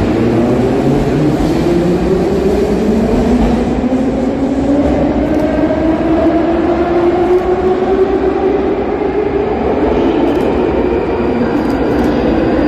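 Metro trains in an underground station: an electric traction-motor whine rises steadily in pitch for about eight seconds, then levels off. Under it is a constant rumble of wheels on rails as a Moskva-2024 (81-775.2/776.2/777.2) train runs in from the tunnel.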